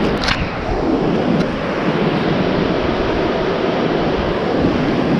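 Ocean surf washing steadily on the beach, with wind rumbling on the microphone and a short click just after the start.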